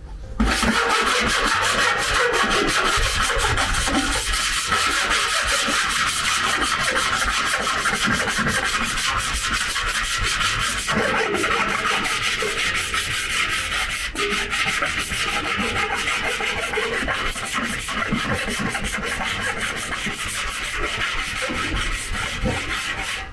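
Continuous sanding on a Toyota HiAce's repaired body panel, a dry, scratchy rubbing that runs on without a break. The sanding is done to find low spots that the abrasive does not reach.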